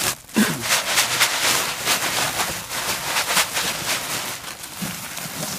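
A cloth sack of chicken feed being shaken, with the fabric rustling and the feed shifting inside in quick repeated strokes, as diatomaceous earth is mixed into the feed.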